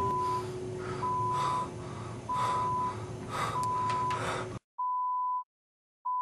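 Electronic beep tone repeating evenly, each beep about half a second long and coming roughly every 1.3 seconds. About four and a half seconds in, the background noise cuts out and the beeps continue alone.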